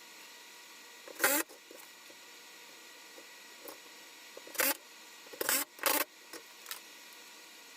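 Objects being handled and set down while organizing a garage: a short clunk about a second in, then three more close together between four and a half and six seconds, over a faint steady hum.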